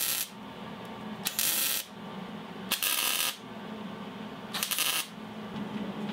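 MIG welder tack-welding a steel exhaust flex-pipe section, each weld a short crackling sizzle of about half a second. One weld ends right at the start, then three more follow about a second and a half apart, over a steady low hum.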